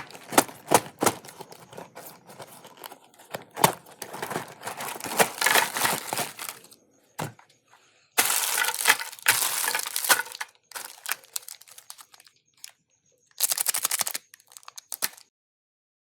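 Candy and chocolate being crushed in a meat grinder: irregular sharp cracks and crunching, in several short bursts that cut off suddenly to silence a few times.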